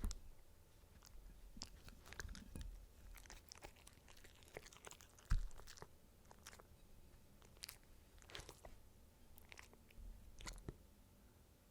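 A dog chewing and crunching food with irregular crunches and clicks, and one louder thump a little past five seconds in.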